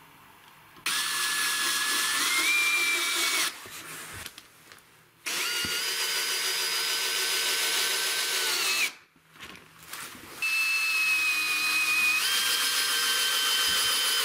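Cordless drill-driver driving screws to fasten wooden slats back down: three runs of about three to four seconds each, its whine stepping up in pitch partway through a run and dropping at the end of each.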